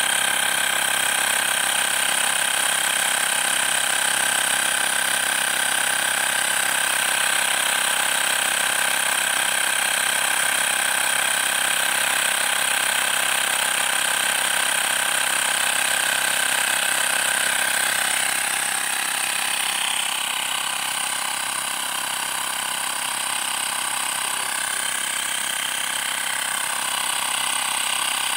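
Mi portable electric air compressor running steadily as it pumps air into a motorcycle tyre, from a reading of 35 toward a set pressure of 45. Its tone shifts and it gets slightly quieter about two-thirds of the way through.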